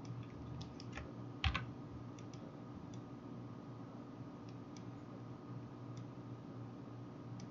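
Scattered clicks of a computer keyboard and mouse, the loudest a quick double click about a second and a half in, over a steady low hum.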